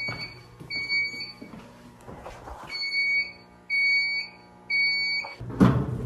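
Fire alarm control panel's buzzer sounding a high, pulsing tone in groups of three beeps with a pause between groups, the temporal-three evacuation pattern. It is the only alarm sound here, because the speakers on this floor are silent. A loud knock comes near the end.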